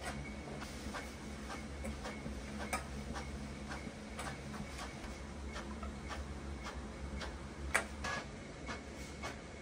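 Scattered light clicks and taps of chopsticks and kombu against a metal bowl and an aluminium stockpot as the kombu is lifted out of the dashi, one sharper click near the end, over a steady low hum.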